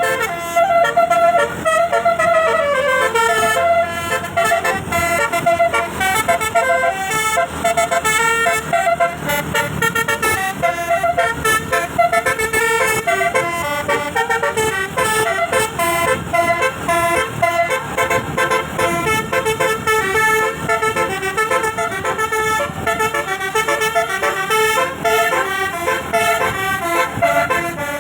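Bus telolet horn, a multi-tone air horn, playing loud melodies of quick notes stepping up and down without pause. It opens on a held note that slides down about two seconds in.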